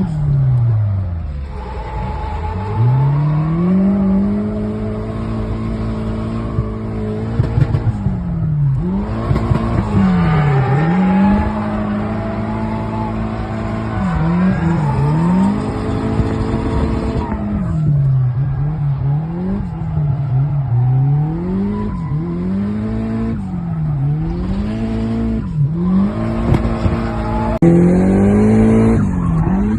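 Nissan SR20DET turbocharged 2.0-litre four-cylinder with a straight exhaust, TD05 turbo and Tomei Poncams, revving hard again and again: the pitch climbs, holds at the same top note, then drops. The early revs are held for several seconds, with a few sharp cracks about a quarter of the way in; the later revs come in quick rises and falls every second or two.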